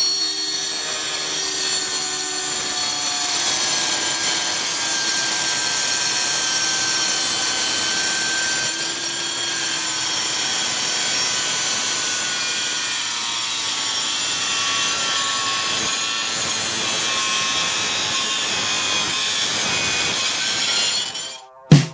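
Angle grinder rigged as a homemade circular saw, running and cutting steadily with a high motor whine that drifts slowly in pitch. It cuts off suddenly near the end.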